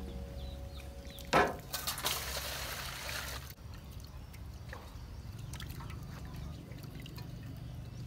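A sharp knock about a second and a half in, then water splashing for a couple of seconds. After that, steady trickling and dripping of water from a woven bamboo basket into an aluminium basin as food is washed.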